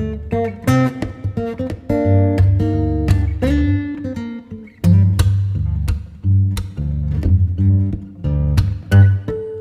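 Background music: a plucked guitar playing a run of quick notes over a steady low bass.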